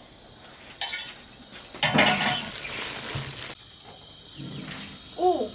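Insects keep up a steady high-pitched chirring tone, while metal bowls, lids and pans clatter and are handled in bursts. The longest and loudest burst runs from about two seconds in for over a second.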